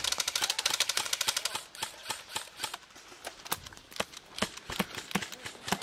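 Airsoft gunfire: a rapid run of sharp clicking shots for about the first second and a half, then scattered single clicks.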